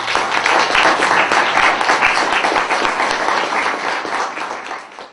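Audience applauding, dense and steady, then fading out near the end.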